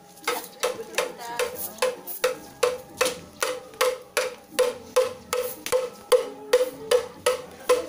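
A bamboo tube struck with a stick in a steady rhythm, about two and a half even knocks a second, each with a short pitched ring.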